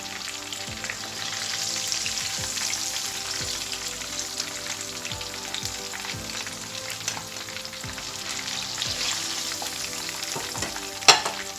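Chicken legs deep-frying in hot oil, a steady crackling sizzle, with one sharp knock near the end.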